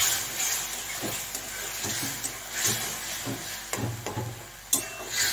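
Onion-tomato masala paste sizzling in a metal kadhai, just splashed with a little water, while a metal spatula scrapes and stirs it in irregular strokes. A sharper clink of spatula on pan comes a little before the end.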